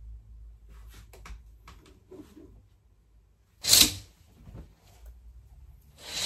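Curtains yanked open along their rail: two short, loud swishes of the curtain runners sliding, the first about halfway through and the second near the end. Faint rustling and steps come before them.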